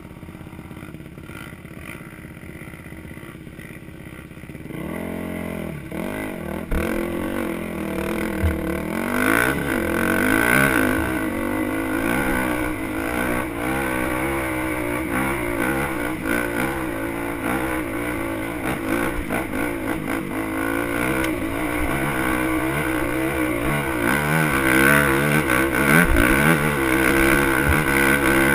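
Dirt bike engine idling steadily, then revving up about five seconds in and pulling hard up a steep, rocky trail, its pitch rising and falling with the throttle.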